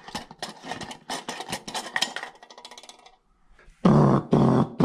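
A speaker LED bulb being unscrewed from a ceiling light socket: a quick run of plastic clicks and scraping as it turns out of the fitting. Near the end come two louder, dull sounds.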